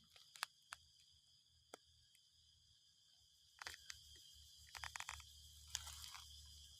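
Dry leaves crackling in a few short clusters of sharp crunches, the loudest in the middle and latter part, over a faint steady high insect chorus.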